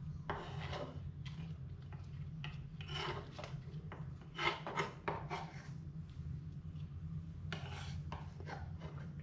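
Kitchen knife cutting carrot strips into small pieces on a wooden chopping board: a run of short, irregular rasping strokes, over a steady low hum.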